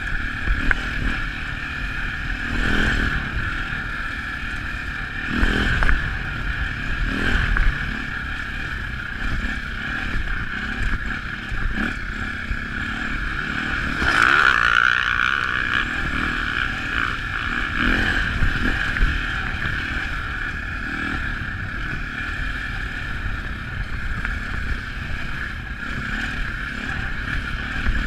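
KTM dirt bike engine running hard while riding a gravel track, with wind on the microphone and a few knocks from bumps. About halfway through the engine pitch rises and falls again.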